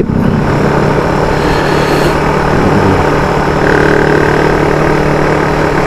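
Motorcycle engine running at a steady speed, with wind and road noise, picked up by an external microphone mounted on the rider's helmet.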